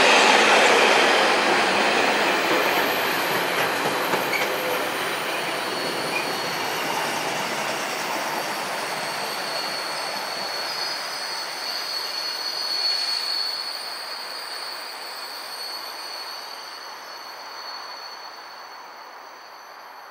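Container freight train's flat wagons rolling past, a steady rumble that fades as the train draws away. A thin high wheel squeal sounds through the middle.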